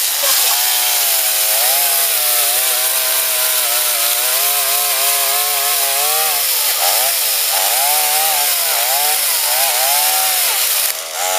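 Small petrol engine of a motorized oil-palm harvesting cutter running hard. Its pitch wavers as the throttle is worked, dips and rises several times in the second half, and drops away near the end.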